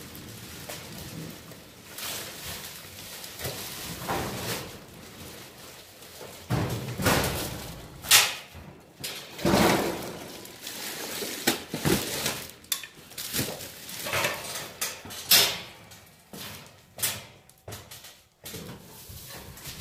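Bags and their contents being handled and hauled out: irregular rustling and scraping broken by several louder knocks and bumps.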